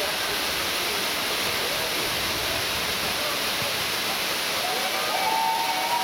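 Dudhsagar Falls, a large multi-strand waterfall, pouring into its plunge pool: a steady, even rush of falling water.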